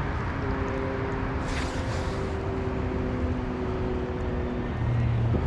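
Spinning reel being cranked in to play a hooked fish, its gears giving a steady whine that shifts pitch as the cranking speed changes, over a constant rush of wind and river noise.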